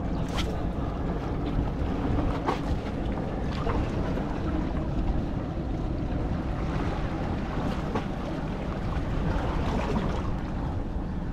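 Wind buffeting the microphone over small sea waves lapping against shoreline rocks, a steady low rushing. A few short sharp clicks stand out now and then.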